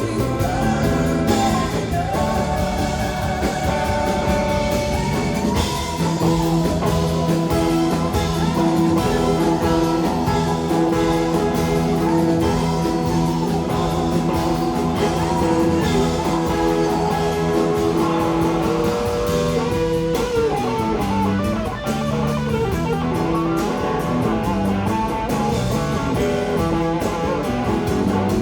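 Live rock band playing an instrumental, guitar-led passage with drums and bass, heard from the audience. A long sustained note holds underneath from about six seconds in until about nineteen seconds.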